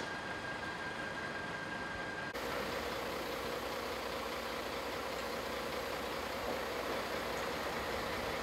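An engine running steadily at idle, a continuous even hum with no distinct knocks or revs. The background changes abruptly a little over two seconds in.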